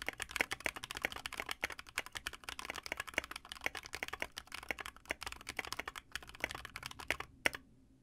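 Fast typing on a compact mechanical keyboard, picked up close by a microphone angled down over it: a dense, uneven run of key clicks and clacks that stops near the end.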